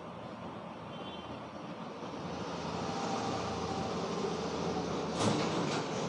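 Traffic noise swelling as a vehicle passes, with a sharp snap about five seconds in and a fainter one just after.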